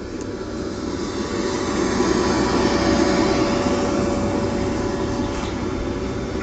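Electric blower fan running steadily to keep an inflatable mascot inflated, a continuous whooshing air noise with a constant hum. It grows louder over the first couple of seconds, then eases a little.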